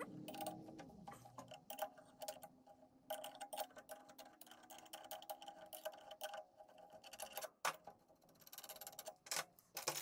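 A chuck key working the jaws of a four-jaw lathe chuck to release a cast-iron exhaust manifold: faint, irregular metallic clicks and ticks in runs, each with a brief ring.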